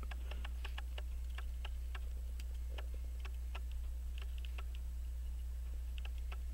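Light, rapid ticking, about five ticks a second, over a steady low hum.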